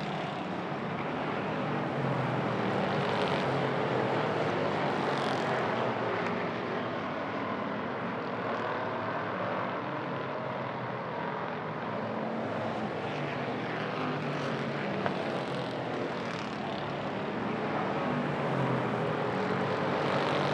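A field of hobby stock race cars running laps on a short oval, a continuous engine roar whose pitch rises and falls as the cars accelerate and lift. It gets louder as the pack passes, a few seconds in and again near the end.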